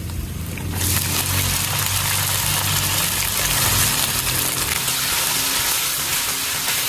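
Soy-marinated pork strips and their marinade poured into a hot oiled wok of sautéed garlic and onion, breaking into a steady sizzle about a second in as the meat starts to sauté.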